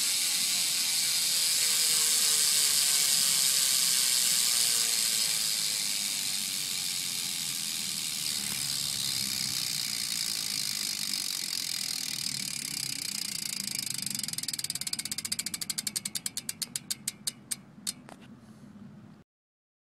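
Profile Totem rear BMX hub freewheeling as the wheel spins: the pawls give a fast, continuous ratchet buzz. Over the last few seconds the wheel slows and the buzz breaks into separate clicks that come farther and farther apart until it stops.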